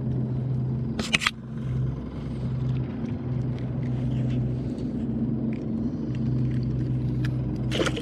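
A steady low motor hum that swells and eases every second or two, with a sharp knock about a second in and another near the end.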